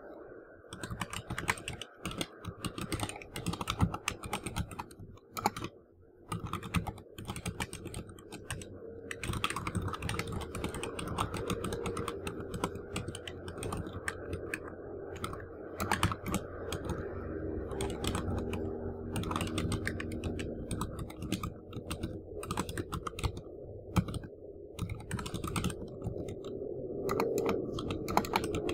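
Typing on a computer keyboard: quick runs of keystrokes with short pauses between words.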